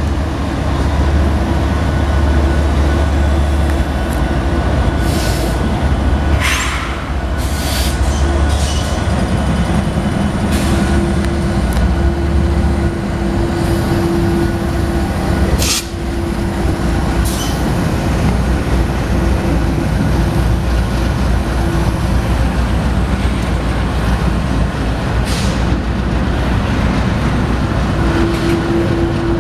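Union Pacific freight train passing close by. The diesel locomotives give a heavy low rumble through roughly the first dozen seconds. Then double-stack container cars roll past with steady wheel noise, broken by a few short, sharp squeals and clanks from the wheels and cars.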